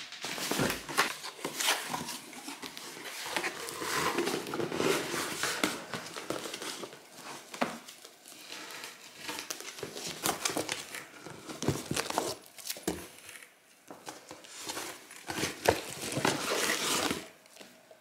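Cardboard box being unpacked: the box, its flaps and plastic-wrapped cardstock sheets rustling and crinkling as they are handled, with a few small knocks on the table.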